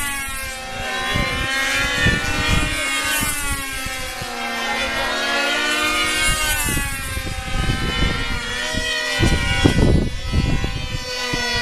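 A model airplane engine whining at high speed on a control-line flight, its pitch rising and falling over and over as the plane circles the pilot. Irregular low rumbles of wind on the microphone come and go, strongest near the end.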